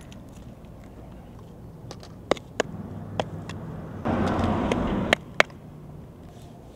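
A steel trowel knocking and scraping in a small plastic bucket of mortar: a few sharp clacks, and about four seconds in, a scrape lasting about a second. A vehicle runs steadily underneath.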